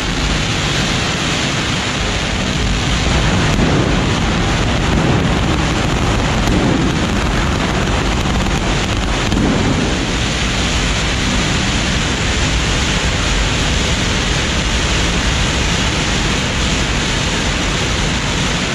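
Fireworks and firecrackers packed on a ceremonial cart going off in a loud, continuous barrage of crackling bangs that lasts throughout.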